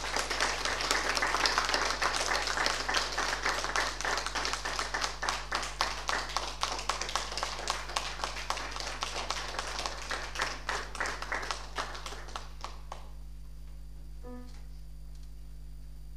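Audience applauding, loudest in the first seconds, then thinning out and stopping about three seconds before the end. Shortly after, a single brief note is plucked on an acoustic guitar.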